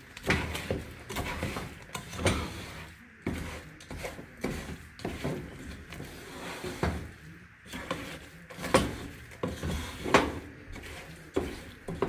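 Spatula stirring a stiff, cereal-filled chocolate mixture in a nonstick pot, with irregular scrapes and knocks against the pot's side and bottom, the loudest a little past the middle.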